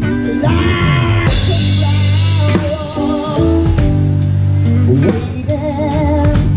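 Live band playing: a drum kit with a cymbal crash about a second in and steady cymbal strikes about twice a second later, over electric guitar, held bass notes and a singer with vibrato.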